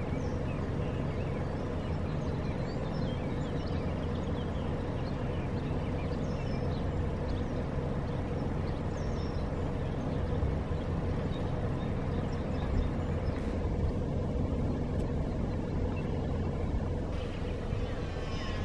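Steady low hum of an idling car engine, with faint high bird chirps over it through the first half.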